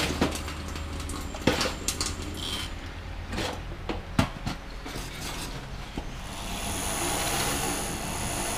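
Metal cup and tools clinking and knocking in a stainless steel sink. About six seconds in, a flexible-shaft rotary tool starts and runs steadily with a high whine, scrubbing a grimy motorcycle engine crankcase cover.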